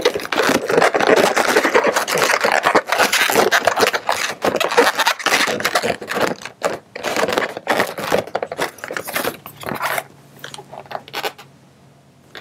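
Latex modelling balloons rubbing and scraping against each other as they are twisted together and pulled through, in many short strokes. The rubbing stops about ten seconds in.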